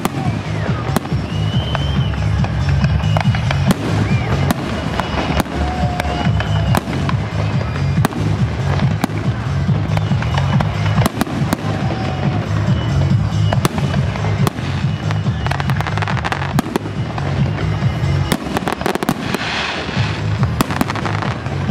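Fireworks display: bangs and crackles in quick succession, with a dense run of crackling near the end, over music with a heavy bass.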